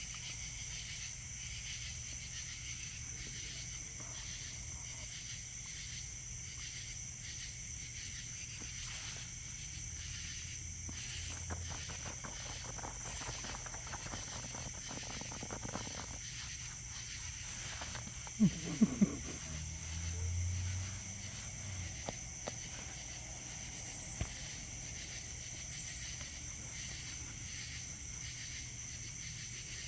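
A steady, pulsing high chirring of insects. About 18 seconds in there are three short, sharp, louder sounds.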